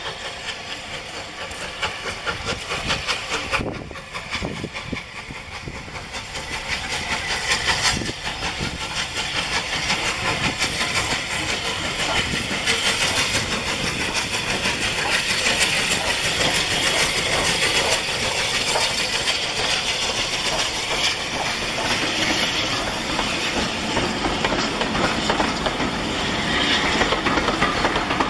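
Three-cylinder Bulleid Battle of Britain class steam locomotive 34081 working a passenger train, its exhaust beats and steam hiss getting louder as it nears and passes. In the second half the coaches' wheels clatter over the rail joints.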